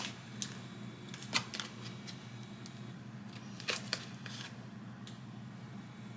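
Light, irregular clicks and taps of small objects being handled, the loudest about a second and a half in and a pair near four seconds, over a steady low hum.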